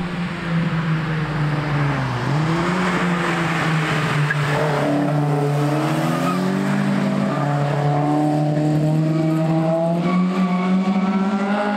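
Fiat Ritmo Abarth 130TCs' naturally aspirated twin-cam four-cylinder engines, breathing through Weber twin-choke carburettors, pulling hard past the camera. The engine note dips about two seconds in, then climbs steadily in pitch as the revs build.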